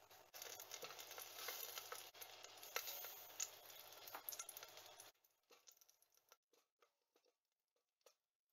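Faint taps and clicks of cut vegetable pieces dropped into a stainless steel stockpot, over a low hiss and hum. The hiss and hum cut out suddenly about five seconds in, leaving only a few soft taps.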